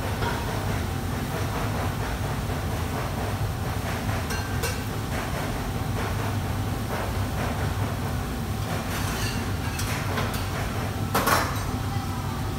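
Steady low roar of a commercial wok range and its kitchen extraction, with scattered metal clanks and scrapes as a cook's metal utensil strikes a large steel wok; the loudest is a ringing clank near the end.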